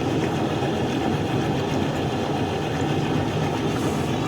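Steady, even low mechanical drone with a hum, unchanging throughout.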